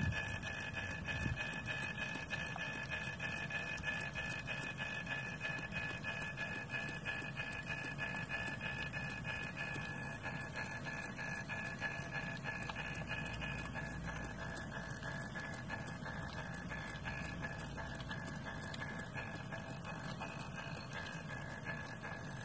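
Vertical single-cylinder model steam engine running steadily under steam, with a rapid even beat over a constant high hiss.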